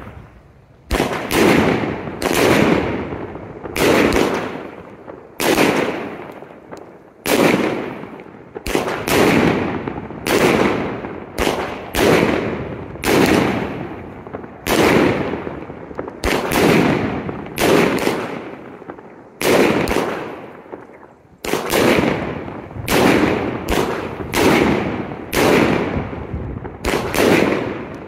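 25-shot consumer firework cake (colored tail to snowball effect) firing its shots one after another, about one every second, each a loud sharp report followed by a long dying echo.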